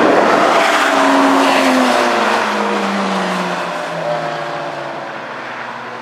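Several sports cars driving past on a racetrack under power, their engine notes sliding down in pitch as they go by and slowly fading as they move away.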